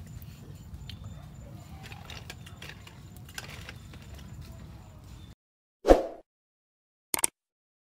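Outdoor ambience: a steady low rumble with scattered small clicks and rustles, cut off abruptly about five seconds in. Then come animation sound effects: one loud whoosh-pop about six seconds in, and a quick double click a second later.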